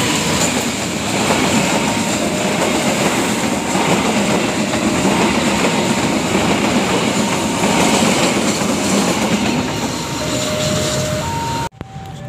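Train passing close by: a loud, steady rumble and clatter of wheels on the rails. It cuts off abruptly near the end.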